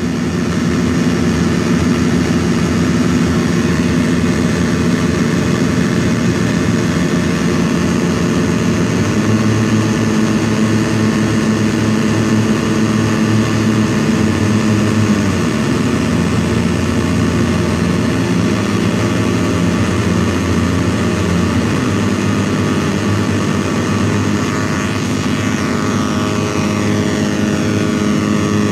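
Handmade square-wave drone synthesizer (Dirty Drone Defrost, eight square-wave oscillators in frequency-synced pairs) running unfiltered: a loud, raw buzzing drone of many stacked tones that beat and shift against each other. Its texture changes a few times, about 9, 15 and 22 seconds in.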